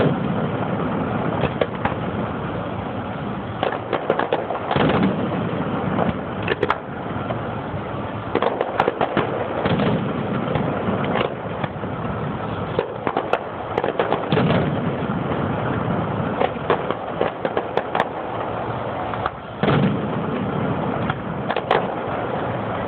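Aerial fireworks from a Pirotecnia Gironina display: a steady crackle of sharp bangs, with a deeper boom from a bursting shell every few seconds.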